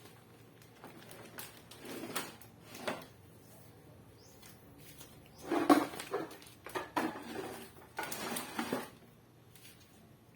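A series of short knocks, clatters and rustles from household objects being handled and set down, with the loudest clatter about halfway through.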